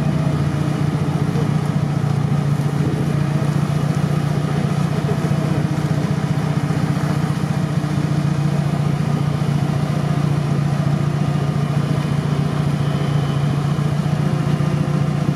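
Engine of an old Soviet GAZ-69-type jeep running at low, even speed under load as it crawls through a deep mud hole, its low note steady throughout.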